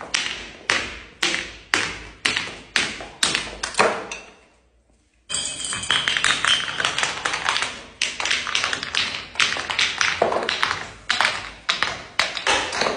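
A bottle tumbling down granite stairs, knocking on each step about twice a second. After a short pause, several bottles, glass and plastic, clatter down the steps together in a dense, rapid run of knocks.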